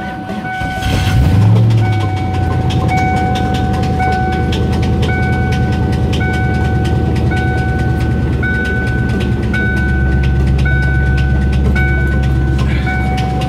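Ford Mustang engine catching about a second in and then idling with a rapid, steady knock, the knock the owner calls the knock of death in an engine due for replacement. A dashboard warning chime beeps about once a second over it.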